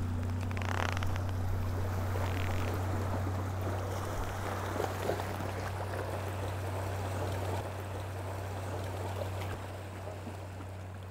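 Water lapping and trickling, an even wash of sound, over a steady low hum that drops slightly in level twice near the end.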